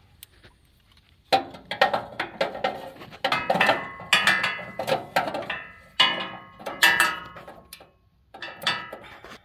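Long steel socket extensions clanking and ringing as they are slid through the access hole in the tractor's front toward the crankshaft pulley nut: a quick run of metal knocks starting about a second in, with a brief pause near the end.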